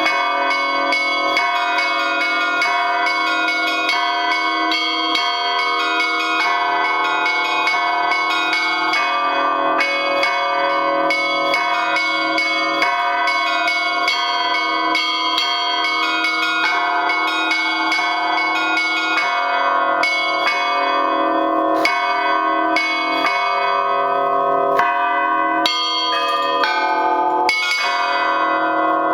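Russian Orthodox church bell ringing (zvon) on eight bells of mixed foundries (Lavrov, Olovyanishnikov, Shuvalov): one large, four medium and three small, many of them damaged. The small bells are struck in a quick, continuous pattern over the middle bells and the big bell's low tolling. Near the end the strikes grow fewer and further apart.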